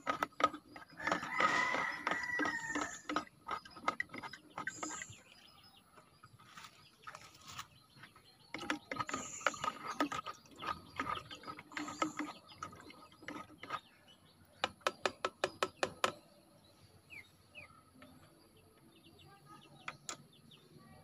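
Plastic water jug and drinker being handled: scattered knocks and clatter, with a quick run of sharp clicks about two thirds of the way through. Chickens call now and then.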